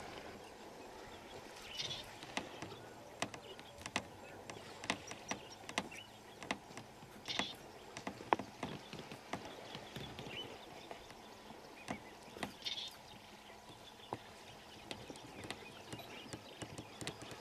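Quiet outdoor ambience with scattered, irregular sharp clicks and knocks, and a short high call every five seconds or so.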